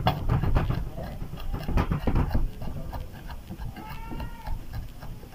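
Kitchen knife chopping garlic cloves on a wooden cutting board, a quick run of knocks through the first half. About four seconds in, a brief pitched call sounds.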